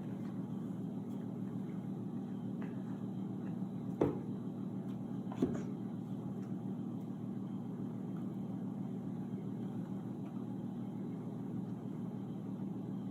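Steady low hum with two brief knocks, about four seconds in and again a second and a half later, from packaging being handled during the unboxing.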